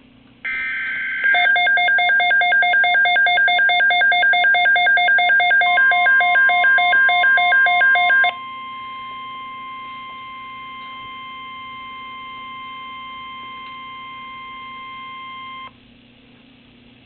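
A Midland WR-100 weather radio going off for an alert. A brief buzzy data burst is followed by the radio's loud pulsing alarm, about five beeps a second, for about seven seconds. The steady 1050 Hz NOAA Weather Radio warning tone comes in during the beeping, carries on alone after the beeps stop, and cuts off near the end, leaving a low hum.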